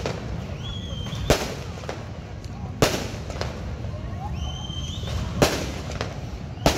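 Aerial fireworks bursting overhead: about four loud, sharp bangs at uneven intervals, with fainter pops between them, over a steady low background rumble.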